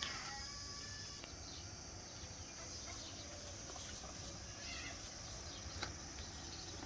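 Outdoor farm ambience: a steady, high-pitched chirring of insects such as crickets, with a few faint animal calls near the start and about five seconds in.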